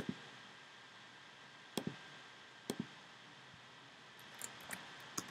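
Faint clicks of a computer being worked: a click at the start, two quick double clicks about two and three seconds in, and a few lighter ticks near the end, over a steady low hiss.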